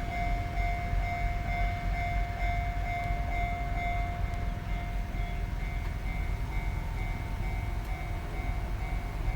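An electric train passing over a level crossing with a continuous low rumble. The crossing's warning bell rings steadily over it.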